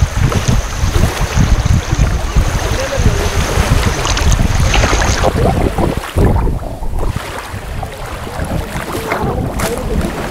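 Wind buffeting the microphone over shallow beach water, with water lapping, the rumble easing after about six seconds.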